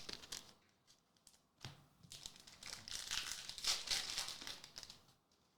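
Foil Pokémon booster-pack wrapper crinkling as it is torn open and handled, a rustle lasting about three seconds in the middle, after a couple of light taps.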